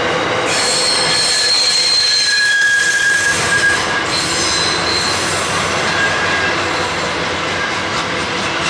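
Loaded grain train's wagons rolling past with a steady rumble of wheels on rail. Shrill wheel squeals come and go over it: a high one starting about half a second in, a lower one around three seconds in, and another high one just after four seconds.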